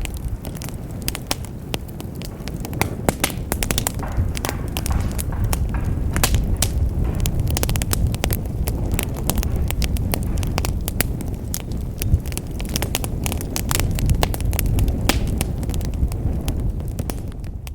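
Wood fire burning in a fireplace: dense crackling and popping of burning logs over a low, steady rumble of the flames.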